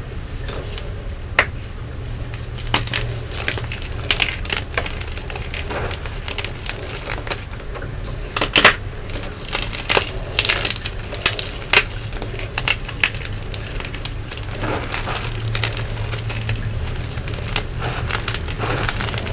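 Hands snapping and crushing blocks of Nexo chalk: a sharp crack right at the start, then irregular crunches and crackles as the pieces crumble between the fingers, over a steady low hum.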